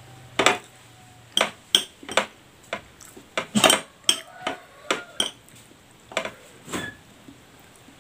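Metal spoon clinking and scraping against a ceramic plate while eating, about fifteen sharp, irregular clinks, some with a short ring.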